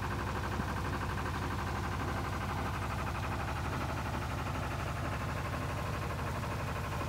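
A sailboat's auxiliary engine running steadily under motor, with a fast, even pulse.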